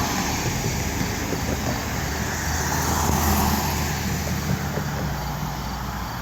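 Road traffic: cars passing on a city street, with tyre noise throughout and an engine's low rumble swelling through the middle and fading near the end.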